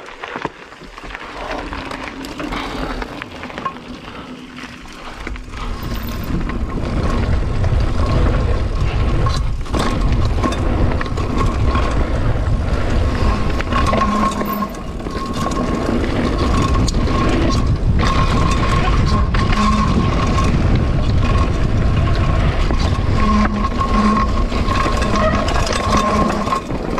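Mountain bike ridden fast down a dirt forest trail: tyres rumbling and rattling over the ground and wind buffeting the camera microphone, growing loud about five seconds in. A thin whine comes and goes over the second half.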